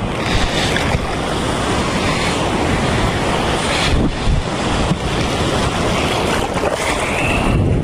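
Sea surf washing and breaking over shallow rocks, with wind buffeting the microphone.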